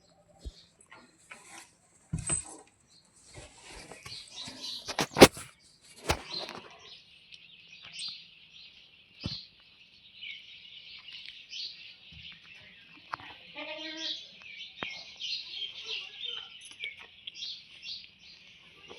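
Many small birds chirping continuously, with several sharp knocks in the first few seconds and a short pitched call about two-thirds of the way in.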